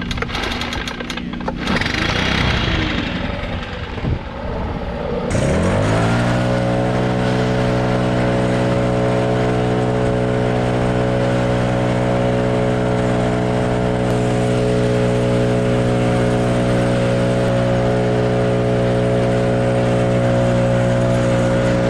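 Mixed clattering noise, then about five seconds in an engine speeds up quickly and runs steadily at high speed.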